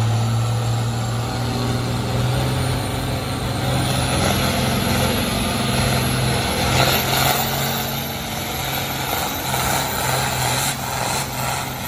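Farm tractor engine running hard and steady under full load while pulling a weight-transfer sled down the track, easing off slightly near the end.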